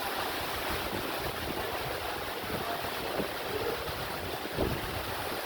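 Strong wind and rain making a steady rushing hiss, with gusts buffeting the microphone in uneven low rumbles.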